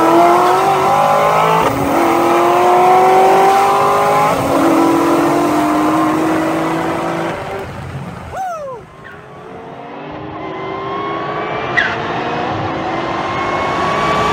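Ford Shelby GT500's supercharged V8 and a twin-turbo Nissan 300ZX's V6 at full throttle in a roll race, the engine notes climbing in pitch with a couple of gear changes. About eight seconds in the sound drops away, and then the cars are heard from a distance, their engines rising and growing louder, with a brief sharp chirp about twelve seconds in.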